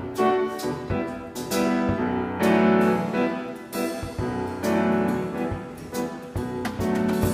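Piano music: notes and chords struck one after another, each ringing on and fading before the next.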